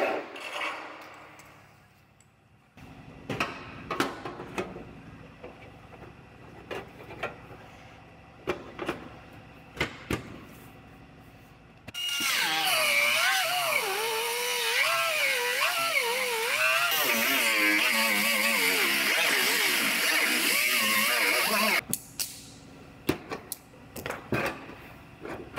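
Pneumatic cut-off tool cutting through overlapped aluminum body panels for about ten seconds, its whine wavering up and down as the load on it changes, then stopping abruptly. Before and after the cut there are scattered clicks and knocks of panels and the tool being handled, and a tool spins down right at the start.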